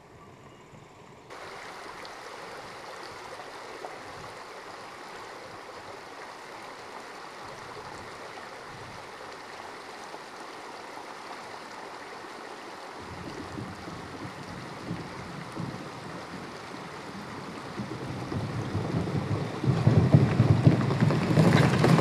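Steady rush of a stream, with a Volkswagen Passat Alltrack approaching over gravel from about halfway, its low rumble growing louder and loudest near the end as it drives onto the wooden plank bridge.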